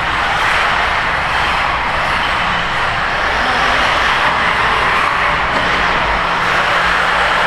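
Several 1/8-scale RC buggies racing on an indoor track, their motors and tyres making a steady, dense din.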